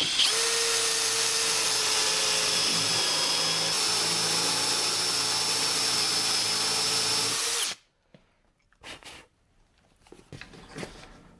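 Cordless drill running at a steady speed as a large wood bit bores a hole about 12 mm deep into a wooden board through a drilling jig, with a constant high whine from the motor. It stops abruptly after about seven and a half seconds, followed by a few faint knocks.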